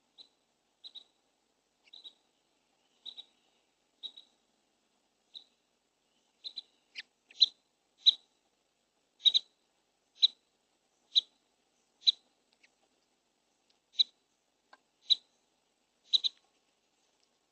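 A bird chirping: a series of short, high chirps about once a second, faint at first and louder from about seven seconds in, a few in quick pairs.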